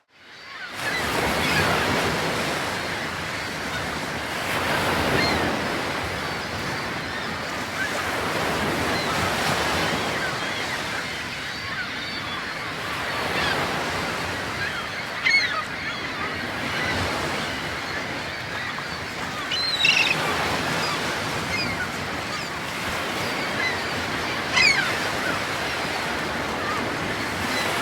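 Surf washing on a shore, a steady rushing noise that swells and eases, with a bird calling in short cries a few times.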